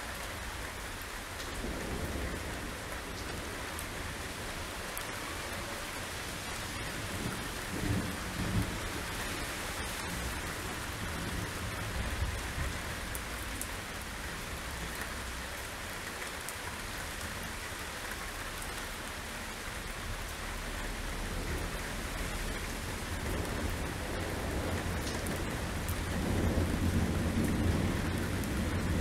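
Torrential rain falling steadily, with thunder rumbling again and again. A longer, louder roll of thunder builds over the last few seconds.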